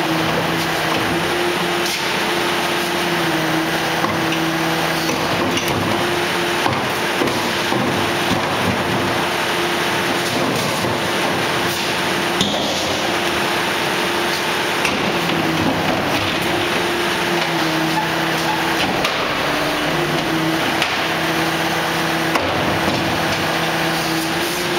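Refuse truck's hydraulic system running under the rear bin lifter, a steady mechanical hum that dips in pitch several times as the load changes, with occasional metallic knocks from the lifter and bin.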